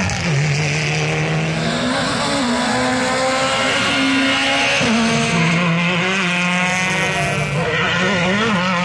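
Rally car engines under hard acceleration as the cars pass one after another, the pitch climbing and dropping sharply several times.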